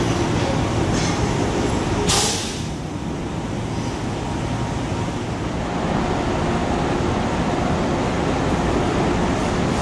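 Steady low rumble of Long Island Rail Road electric trains in an underground station, with a short, loud hiss about two seconds in.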